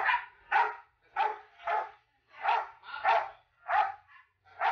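Dog barking repeatedly, about two short barks a second, as it guards a child from an approaching adult.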